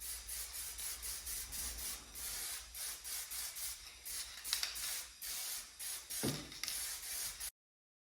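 Paintbrush stroking POR-15 top coat onto sandblasted metal: a run of short brushing swishes, about two a second, that stops abruptly near the end.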